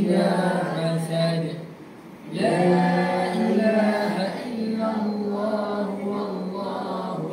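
Voices chanting a melodic religious recitation in unison, with long held notes and a short breath pause about two seconds in.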